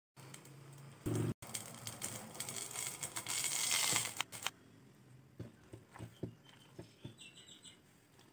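Steel saucepan of water boiling on a gas burner: a loud hiss that cuts off about four and a half seconds in. Scattered light clicks and taps follow.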